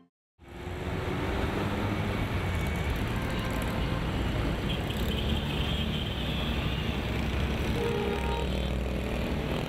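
Steady city road traffic: cars driving past on a busy street. It starts about half a second in, after a moment of silence.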